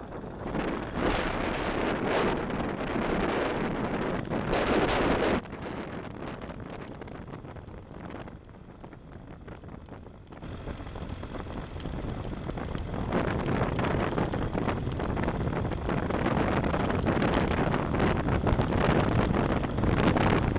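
Wind rushing over the microphone of a camera on a moving BMW GS adventure motorcycle, with the bike running underneath. The rush drops abruptly about five seconds in, stays lower for a few seconds, and builds back up from about ten seconds in.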